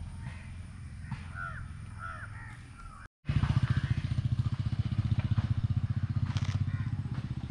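A vehicle engine running with a rapid, even putter; it cuts out for a moment about three seconds in and comes back louder. Birds call briefly over it.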